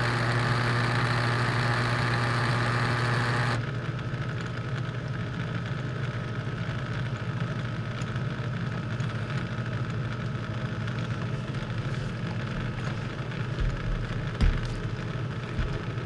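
Hotpoint dishwasher motor pump assembly running in the drain cycle: a steady motor hum under the rush of water being pumped out, on a unit that is draining slowly. About three and a half seconds in, the water rush drops away abruptly and the hum carries on more quietly, with a couple of light knocks near the end.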